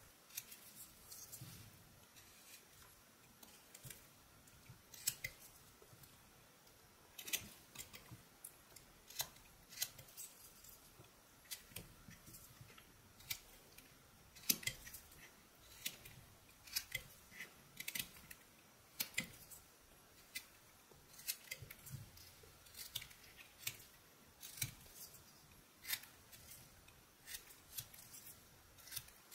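Whittling knife, a modified boning knife, cutting eastern white pine: short crisp clicks and slicing scrapes as chips are pared off, coming irregularly about once a second.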